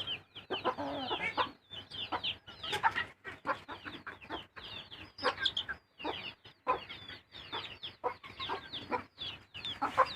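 Domestic chickens clucking, several birds calling over one another in a continuous run of short calls.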